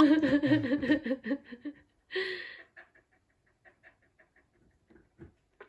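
Border Collie grumbling at her owner in a play-demanding protest: a wavering, pulsing growl-moan lasting about two seconds, then a short huff about two seconds in, followed by soft panting.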